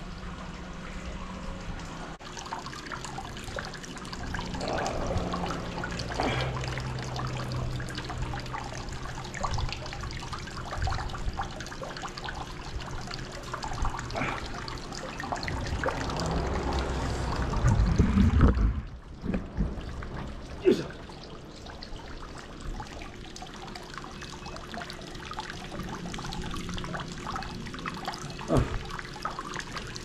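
Hot-spring water trickling and pouring into a wooden foot-bath tub, a steady free-flowing stream. About two-thirds of the way through, a louder low rumble builds and then cuts off sharply.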